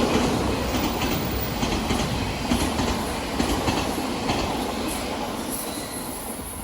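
Odakyu Line electric train running past on the tracks, a steady rumble with a few wheel clicks, fading as it moves away.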